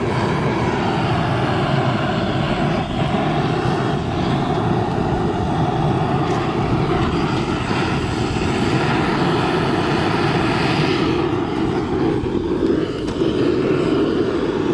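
Handheld gas torch blasting its flame into a bowl of charcoal briquettes to light them, a loud, steady rushing noise. The sound shifts slightly about twelve seconds in as the torch is moved.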